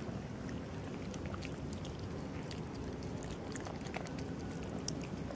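Cats eating wet food close up: a run of small, irregular wet clicks and smacks from chewing and lapping, over a steady low rumble.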